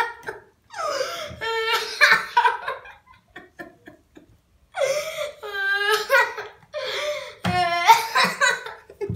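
A boy laughing hard in fits of giggles, in two bouts with a short lull about three seconds in before a longer second burst.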